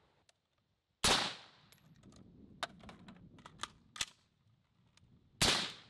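Two rifle shots from a PSA JAKL long-stroke piston AR, one about a second in and one near the end. Between them comes a run of light metallic clicks and clatter: a magazine change.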